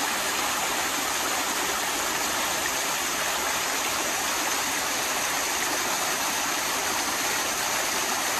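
Steady rush of a rocky woodland creek and a small waterfall.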